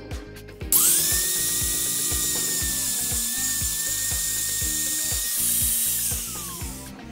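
Angle grinder spinning up about a second in and grinding the steel drive chain, a loud hiss with a steady high whine, then winding down in a falling whine near the end.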